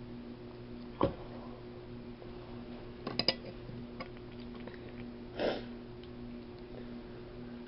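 Eating sounds over a steady low hum: a sharp knock about a second in, a quick run of clicks about three seconds in, and a short soft noise about two seconds later, like utensils on a dish and chewing.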